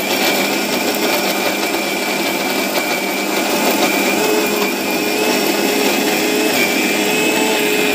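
Indian mixer grinder (mixie) running at a steady speed, its motor whining as it grinds chutney in the jar.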